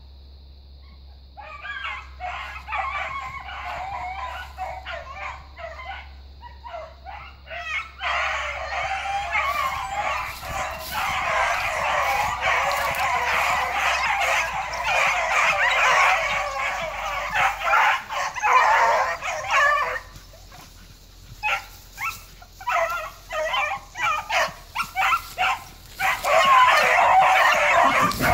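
A pack of beagles baying together in a dense, overlapping chorus. After a brief lull, single dogs give separate cries, and then the full chorus builds again near the end.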